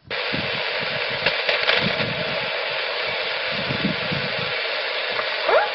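27 MHz CB radio receiver hiss coming on abruptly once the transmission ends, steady and loud, with a weak station calling faintly under the noise. A short rising tone comes through near the end.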